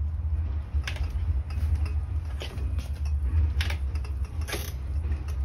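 A handful of sharp metallic clicks and knocks as bicycle handlebars and their levers are handled and turned in the stem, over a steady low rumble.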